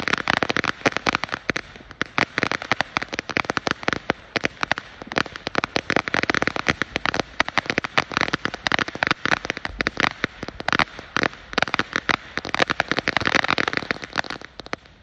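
Ground fountain firework spraying sparks, with a dense, rapid crackle of many small pops a second. The crackle dies away just before the end.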